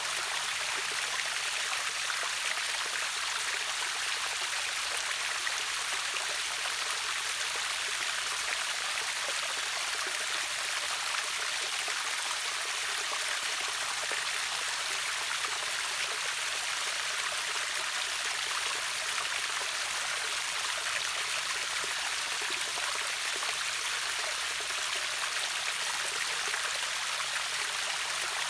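River waterfall with water rushing and splashing steadily: an even, bright hiss with little deep rumble and no change throughout.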